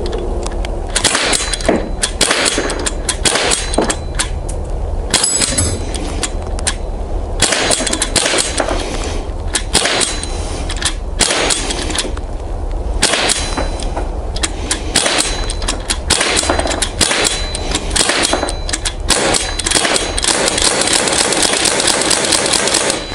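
Sig Sauer MPX .177 semi-automatic pellet pistol, fed from a bulk-fill high-pressure air tank, firing strings of quick shots, fastest near the end, with pellets clanging off a steel resetting target.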